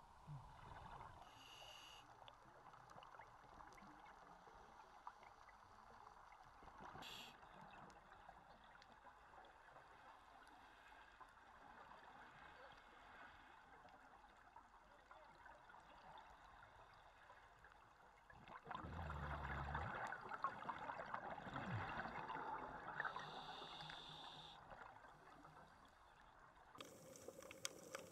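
Faint, muffled underwater noise picked up by a camera in its housing, a steady hiss with a louder stretch of bubbling and gurgling about two-thirds of the way through.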